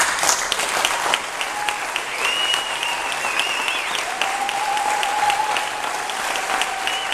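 Audience applauding, breaking out suddenly and holding steady, with a few high whistles over the clapping.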